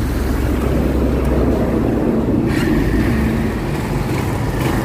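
Kawasaki Barako 2 motorcycle's single-cylinder four-stroke engine running steadily, its carburetor freshly tuned to cure hard starting.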